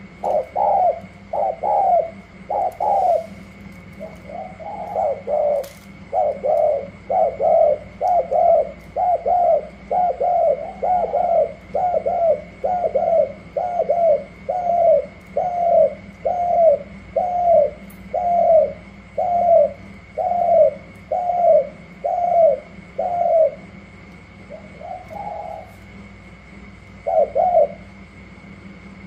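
Caged spotted doves cooing in a cooing match: a long run of short, falling coo notes, about three every two seconds. The run stops a little over 20 seconds in, and is followed by one softer coo and a last coo near the end.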